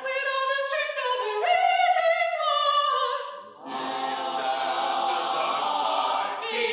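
A cappella vocal ensemble singing. A single high voice carries a held line that slides upward, and after about three and a half seconds the full group of mixed voices comes in on a long sustained chord.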